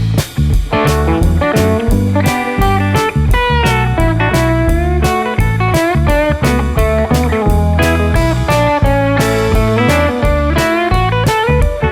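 Background music: a bluesy instrumental with electric guitar playing bent notes over a steady drum beat.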